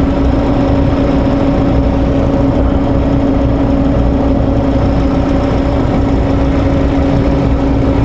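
Honda Accord 2.4-litre four-cylinder engine idling with no electrical load, with a steady, even hum running through it. The alternator is failing and not charging: the battery sits at about 12.4 volts at idle.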